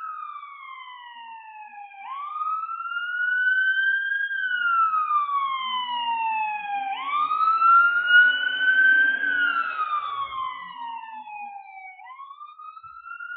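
Paramedic truck's wail siren, rising and falling slowly about every five seconds. It grows louder to a peak about eight seconds in as the truck passes, with some engine and tyre noise, then fades a little.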